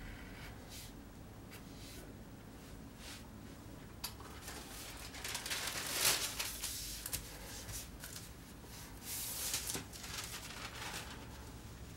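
Faint pencil strokes on paper, then from about four seconds in a sheet of paper being handled and rustled against the paper-covered drawing board, loudest about six seconds in and again around nine to ten seconds.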